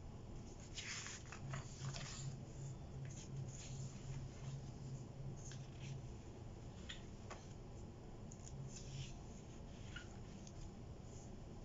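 Pages of a thick coil-bound paper planner being flipped and turned by hand: a run of soft papery swishes and rustles, the busiest about a second or two in.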